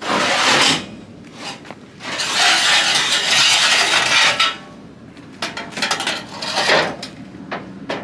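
Metal scraping and clanking as a car trailer is opened and its ramp is readied for unloading: two long scrapes, then a run of sharp knocks and clanks near the end.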